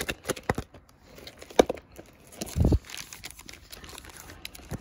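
Paper pages and plastic sheet protectors rustling and crinkling as they are leafed through by hand, with sharp snaps of the sheets and a duller thump about two and a half seconds in.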